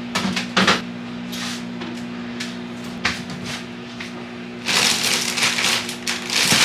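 A microwave hums steadily while food is warmed, with short rustles and clicks of handling. In the last two seconds a plastic snack bag is loudly crinkled and crackled as it is handled.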